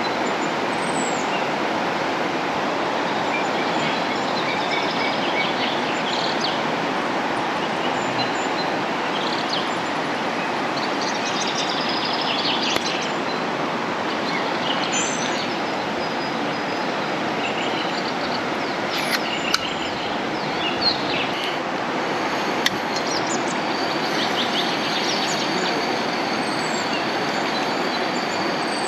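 A steady rushing noise with birds chirping over it, and a few sharp clicks in the second half.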